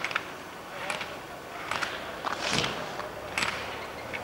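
Skis carving slalom turns on snow: a run of short hissing swishes of the edges scraping the snow, one every second or so.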